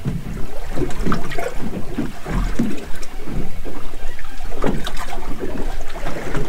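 Waves slapping and splashing against the hull of a small boat drifting on a choppy sea, in irregular bursts.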